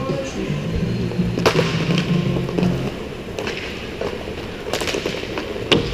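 Roller hockey play: several sharp clacks of sticks and puck on the plastic sport-court floor, the loudest near the end, over background music with a bass line that stops about halfway through.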